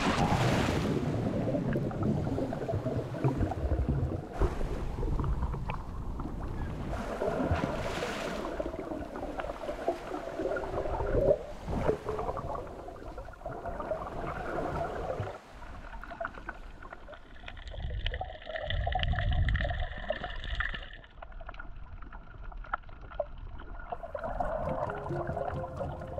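Water sloshing and gurgling, heard muffled through a camera dipping through the surface and held underwater while snorkeling. Several sharp splashes come in the first half.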